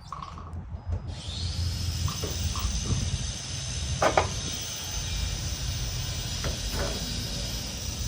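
Louver motor of an Azenco R-Blade motorized louvered pergola starting about a second in and running with a steady high whine, with a few knocks as the louvers move, over a low rumble.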